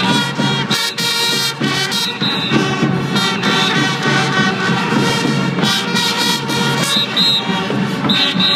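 A band of children playing small brass trumpets together, holding loud, sustained notes.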